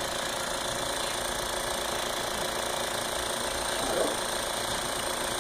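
Aspiramax vacuum cleaner running steadily, a constant motor and airflow noise.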